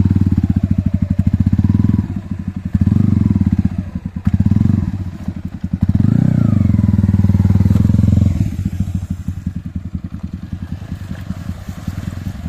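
Motorcycle engine revving in repeated surges under load as the bike is ridden through sticky mud and muddy water, with the rear wheel working to pull it free. About eight seconds in, it drops to lower, choppier running.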